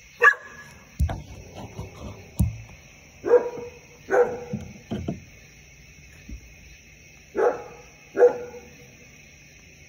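A dog barking, five short barks, the later four coming in two pairs, over a steady high-pitched hum. Two dull knocks come between the first barks, about one and two and a half seconds in.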